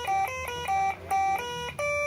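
Telolet multi-tone horn module playing a preset song: a quick melody of short, clean horn notes, about five a second, stepping between a handful of fixed pitches.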